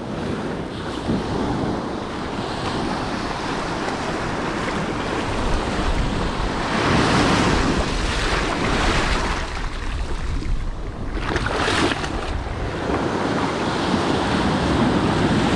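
Ocean surf washing up a sandy beach, waves breaking and foaming in the shallows, with wind on the microphone. The wash surges louder about seven seconds in and again briefly near twelve seconds.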